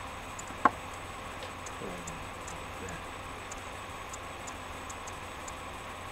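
Faint, irregular light ticking with one sharp click a little over half a second in, over steady background hiss.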